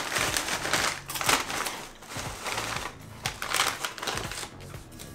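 Crinkling of a plastic snack bag as a hand reaches in for potato snack sticks, mixed with the crunching of the sticks being bitten and chewed: several irregular bursts of crackling.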